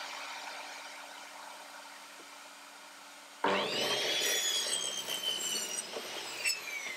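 Metabo sliding mitre saw switched on about halfway through, its motor whining as the blade cuts through a wooden frame piece, the pitch slowly dropping under the load of the cut.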